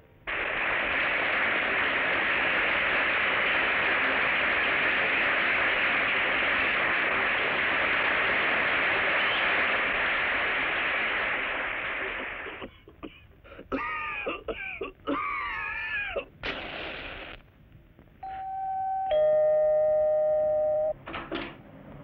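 Vacuum cleaner motor running as a steady rushing noise for about twelve seconds, then cutting off suddenly. A few swooping, wavering tones follow, and near the end a two-tone doorbell chime, a higher note then a lower one.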